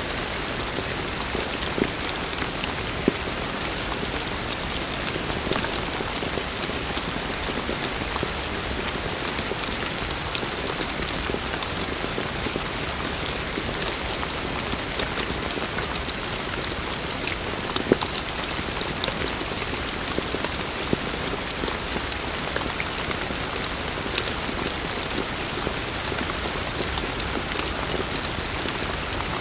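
Heavy rain falling steadily, a dense hiss with scattered sharp drop impacts; a few individual drops hit louder about two, three and eighteen seconds in.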